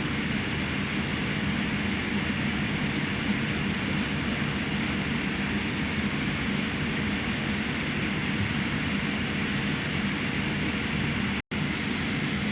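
Steady cabin noise of a Boeing 787-8 airliner: a constant rush of engines and air with a low hum underneath. It cuts out for an instant about a second before the end.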